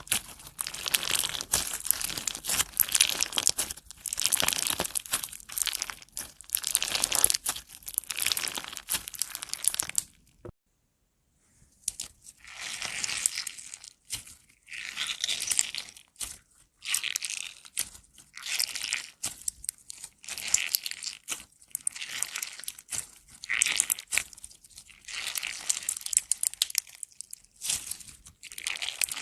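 Slime being squished and pressed by hand, giving dense crackling, crinkly crunching sounds. There is about a second of silence roughly a third of the way in, after which the crackling resumes.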